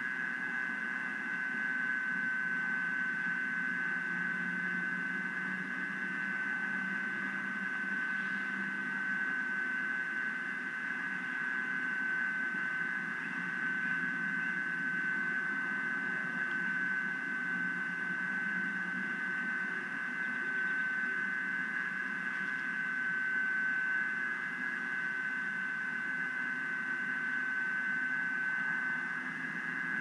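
Steady hiss from a live nest-cam microphone feed, with a constant high-pitched whine running through it and a faint low rumble that rises and falls.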